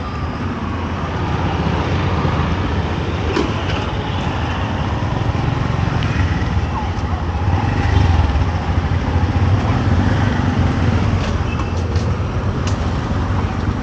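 Road traffic passing on a busy street: a steady engine rumble with a few short clicks and knocks scattered through.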